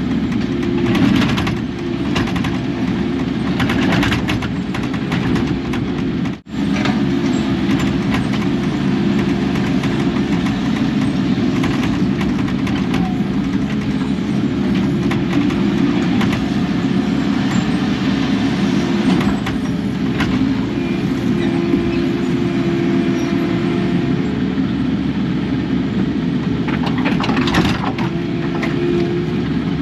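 Kubota KX080 excavator's diesel engine running steadily under working load, with a few short hissy flares over it. The sound cuts out for an instant about six seconds in.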